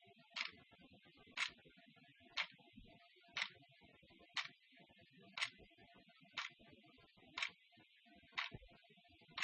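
Clock ticking steadily, one sharp tick a second, over a faint hiss.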